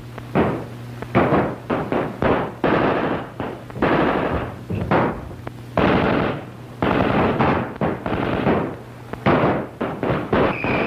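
Heavy gunfire: many shots in quick succession, some running together into longer bursts, over a steady low hum from the old film soundtrack.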